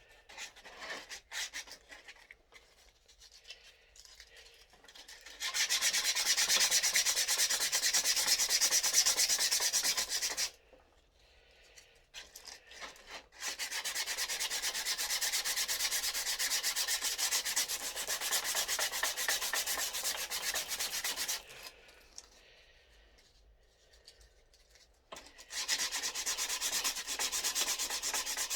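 Sanding a scroll-sawn wooden name puzzle: three long, steady stretches of sanding, the first starting about five seconds in, separated by pauses with light scratching and handling of the wood.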